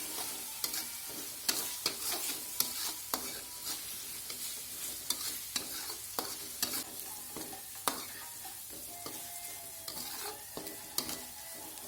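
Ground spice paste (chilli, shallot, garlic, turmeric) sizzling quietly in oil in a pan over low heat while a spatula stirs it, with frequent light clicks and scrapes of the spatula against the pan.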